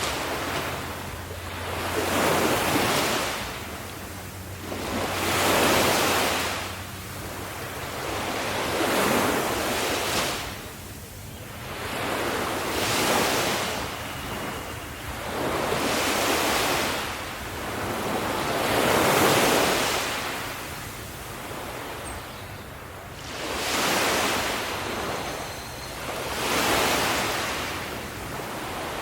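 Ocean surf: waves break and wash ashore in repeated swells of rushing noise, about one every three to four seconds.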